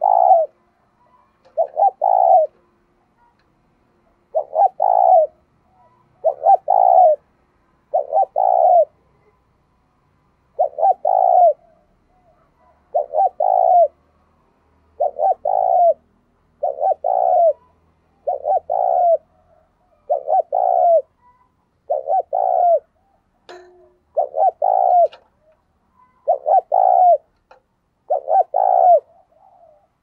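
Caged decoy spotted dove cooing over and over, about one short doubled coo every two seconds: the hurried bowing coo ('thúc gù') used to draw wild spotted doves in.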